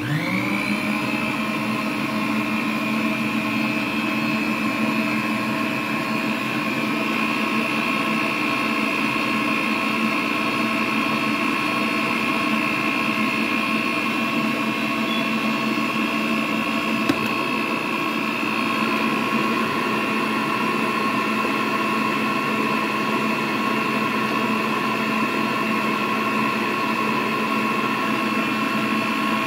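Electric stand mixer motor starting up, its whine rising quickly to speed, then running at a steady pitch as the beater mixes cake batter in a steel bowl.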